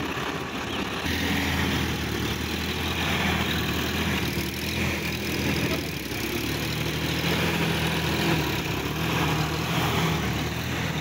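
Sonalika tractor's diesel engine running steadily while working a muddy field. Its note changes abruptly about a second in and shifts again past the middle.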